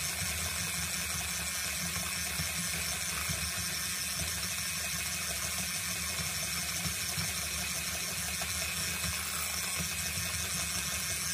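Electric hand mixer running steadily at constant speed, its beaters whirring through creamy cake batter in a glass bowl.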